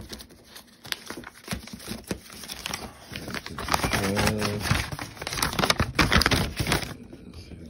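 Paper rustling and crinkling as a sheet of paper is handled over a cardboard box, busier and louder in the second half and stopping shortly before the end.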